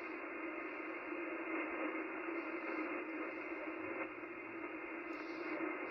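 Steady hiss and static from an amateur radio receiver's speaker, with no station talking. The noise is cut off sharply in the highs, as receiver audio is, with a low hum running underneath.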